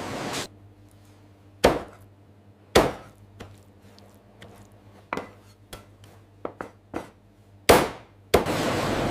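A rushing hiss cuts off about half a second in. Then come three loud, sharp knocks, the last one the loudest, with lighter clicks and taps between them. A steady rushing noise returns near the end.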